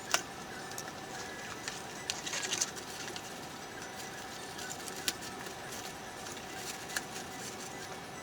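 Scattered light clicks and taps from handling parts, with a cluster about two seconds in, over a steady background hiss and hum.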